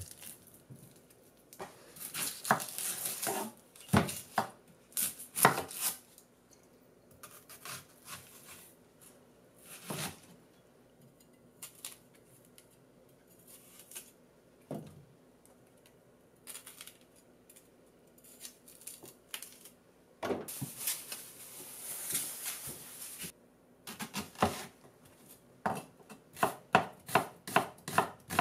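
A large onion being prepared with a kitchen knife on a bamboo cutting board. There are dry rustles as the papery skin is pulled off and single knife cuts knocking onto the board. Near the end comes a steady run of chopping strokes, about two to three a second.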